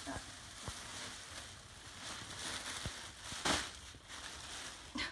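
Black plastic garbage bag rustling and crinkling as gloved hands dig through it, with a louder crinkle about three and a half seconds in.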